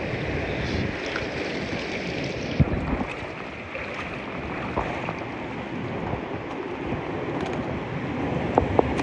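Rushing water of a swollen, fast-flowing river around a packraft, with wind noise on the microphone. A few light knocks come near the end.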